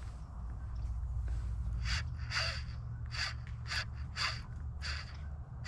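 A crow cawing repeatedly: short harsh calls, about two a second, beginning about two seconds in, over a steady low rumble.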